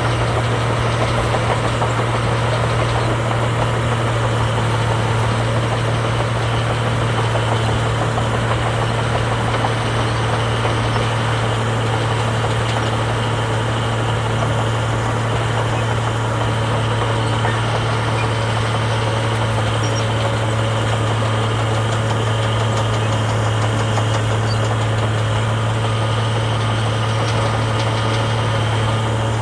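Heavy diesel engine of earthmoving machinery running steadily with a deep, even hum.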